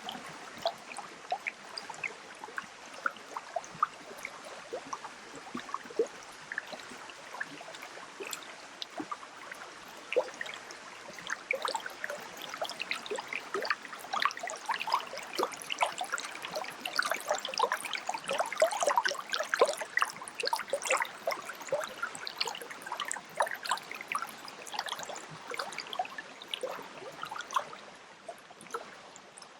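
Running water trickling and gurgling, a dense, continuous patter of small splashes and plinks that grows busier in the middle.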